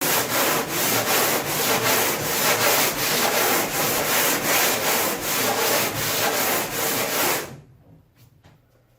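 Sandpaper being rubbed by hand over a plywood boat hull in quick back-and-forth strokes, about two or three a second, stopping about seven and a half seconds in.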